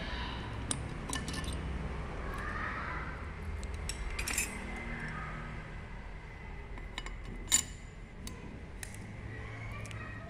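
Small metal parts clicking and clinking against the housing of a diesel injection pump while its feed (vane) pump is being refitted by hand. The clicks are scattered, with one sharp, louder click about seven and a half seconds in.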